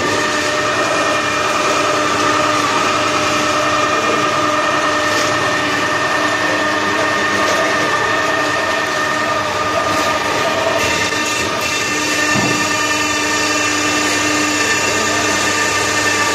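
A 4 m³ TMR feed mixer with an electric drive running steadily: a continuous mechanical running noise with a held whine in it.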